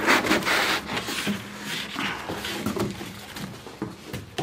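Cardboard box rustling and scraping as a tower speaker is slid and lifted out of it, loudest at first, with a light knock near the end.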